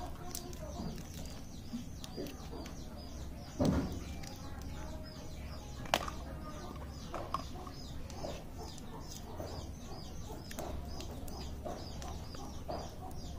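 Plastic and foil candy wrappers crinkling and rustling as they are peeled open by hand, with a dull thump a few seconds in and a sharp click about halfway through. Birds chirp and cluck in the background.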